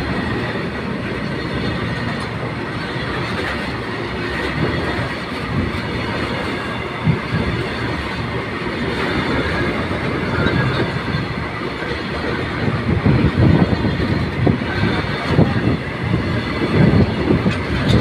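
Freight train of BTPN tank wagons rolling past: a steady rumble of steel wheels on rail, with knocks from the wheel sets that grow louder and more uneven in the last few seconds.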